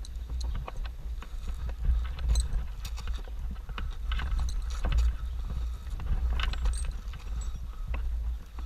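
Steady low rumble on the microphone with scattered light clicks and knocks, as gear is handled on a roof.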